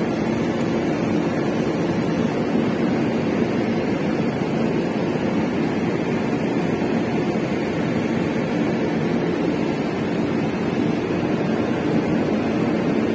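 JCB's diesel engine running steadily, with an even, unchanging drone.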